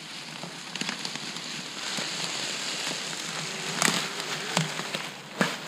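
Dry fallen leaves crackling and crunching under the tyres of an electric trials motorcycle as it rides over the forest floor and past close by, with a few sharp snaps near the end.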